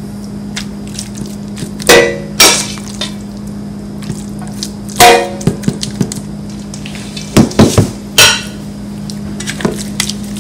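A spoon knocking and clinking against a dish as the ricotta cheese mixture is spooned onto lasagna noodles: several sharp knocks in small clusters, some ringing briefly, over a steady low hum.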